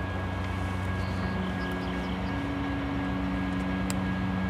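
Diesel locomotive of an approaching CSX work train running in a steady low drone, with a thin steady high tone above it.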